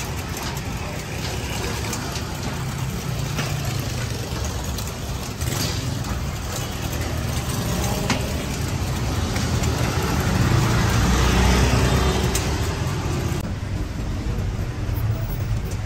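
Low street-traffic noise, swelling as a motor vehicle passes about ten to twelve seconds in and fading again.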